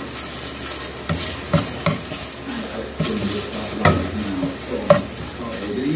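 Canned tuna frying with a steady sizzle in a nonstick pan while it is stirred and scraped with a plastic spatula, which knocks sharply against the pan about six times, loudest near the end. The tuna is being fried until its liquid has cooked off and it turns dry.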